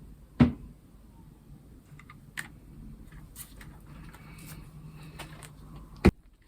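A keyboard and its packaging being handled: a heavy knock about half a second in, a few light clicks and some rustling, then a sharp knock near the end.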